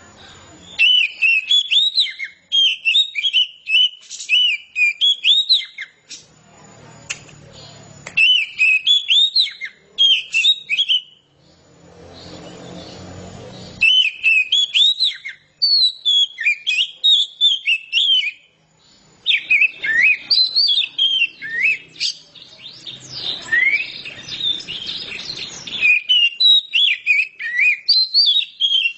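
Oriental magpie-robin singing loudly in full, free-flowing song: rapid, varied whistled phrases in bouts of several seconds, broken by a few short pauses.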